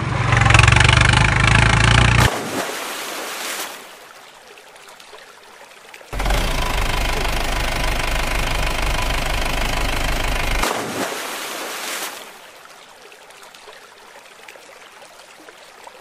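Vehicle engine sound in two stretches. The first runs for about two seconds and cuts off; the second starts about six seconds in, runs steadily for about four and a half seconds and stops. Between and after them there is only quieter background.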